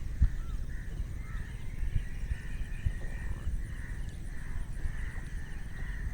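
Outdoor ambience of birds calling repeatedly, over a low, uneven rumble.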